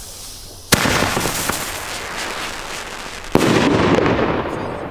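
A Pyroland BKS 1 single-shot firework shell tube (Bombenrohr, 25 g net explosive mass) firing. The shell launches from the tube with a sharp thump about a second in. About two and a half seconds later it bursts overhead into stars with a bang. Each report is followed by a long fading echo.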